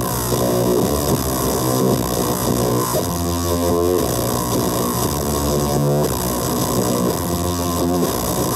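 Heavily distorted electric guitar played through the Dirt Monger Instruments Leviathan and McLean Effects Swede Demon pedals into a HeadRush powered speaker. Notes and chords change every second or so over a thick, steady hiss.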